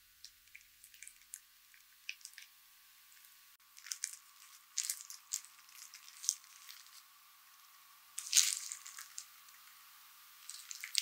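A plastic-gloved hand squeezing a rice ball of sticky seasoned rice: scattered short wet squishes and crinkles of the glove, the loudest about eight seconds in.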